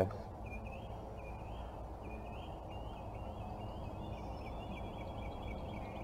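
Faint outdoor background with a low steady hiss and a bird chirping over and over in short high notes, getting a little busier toward the end.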